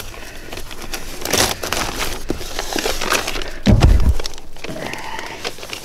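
Cardboard box and brown paper wrapping being handled, rustling, crinkling and scraping, with a heavy thump near four seconds in as the package knocks down onto the tailgate.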